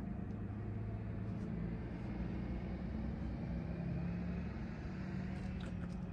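An engine running steadily, a low even hum, with a few faint clicks near the end.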